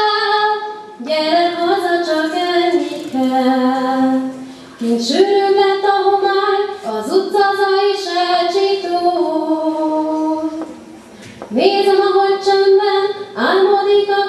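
A young woman singing a slow song solo into a microphone, holding long notes that she slides up into, with two short breaks for breath.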